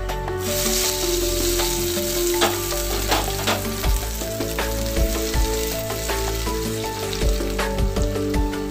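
Hot tempering oil with black mustard seeds, chana dal, dried red chillies and curry leaves sizzling as it is poured onto peanut chutney in a bowl. From a few seconds in, a spoon stirs it in, clinking against the bowl.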